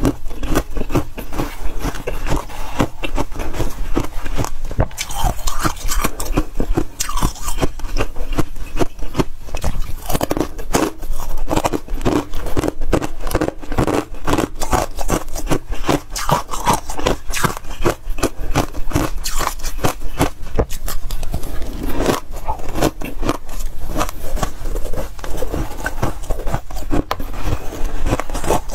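Freezer frost being scraped loose and crunched while eaten: a dense, continuous run of crackling and scraping.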